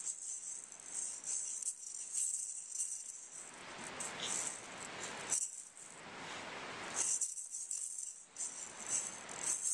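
Small toy maraca rattling as a baby shakes and knocks it about, in irregular bursts of shaking with short pauses.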